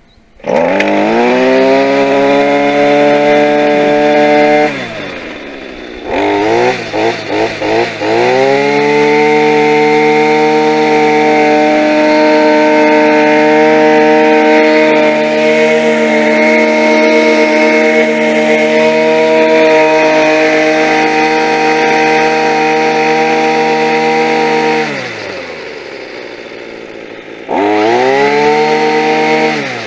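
New 25 cc two-stroke combination trimmer/edger engine starting right up without the choke and revving high. It drops to idle about five seconds in and takes a few quick throttle blips. It then runs at full throttle for about sixteen seconds, falls back to idle, and revs up once more near the end.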